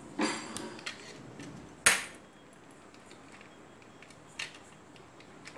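Plastic toy air guns handled on a wooden table: a short clatter of hard plastic near the start, one sharp click about two seconds in, and a faint tick later on.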